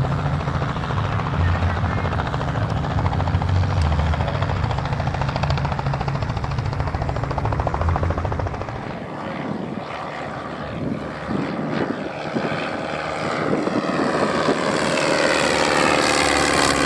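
Klemm L-25H ultralight replica's engine and propeller droning on a low pass. It fades a little past the middle as the plane climbs away, then grows louder near the end as it banks back around.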